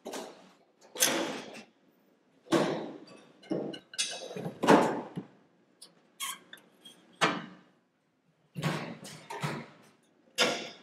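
Stainless steel pressure fryer lid and hinge parts knocking and scraping against one another in a string of separate clanks and slides as the lid is fitted onto the fryer.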